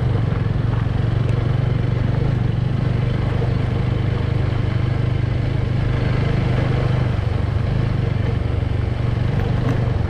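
Motorbike engine running at a steady speed, a constant low drone with no revving.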